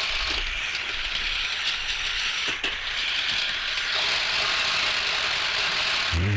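Model train running on its track: a steady rattling whirr of motor and wheels on rail, with a brief click about two and a half seconds in.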